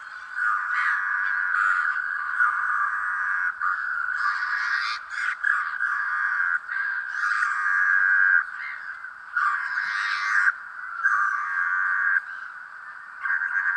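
Dense chorus of animal calls, chattering in bouts of one to two seconds that start and stop abruptly.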